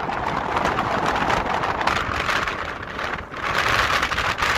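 Steady rushing jet noise from a regional airliner descending on approach, mixed with wind buffeting the microphone, dipping briefly about three seconds in.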